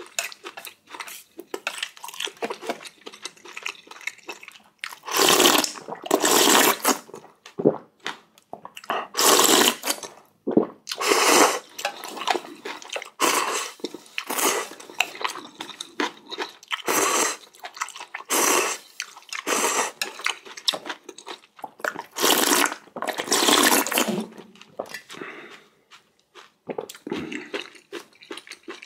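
A person slurping ramen noodles and broth in a series of loud slurps, each lasting about half a second to a second, with quieter wet chewing sounds between them.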